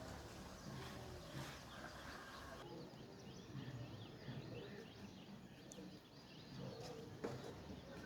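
Faint, busy chirping of sparrows: many short chirps overlapping against a low background hum. A single sharp click about seven seconds in.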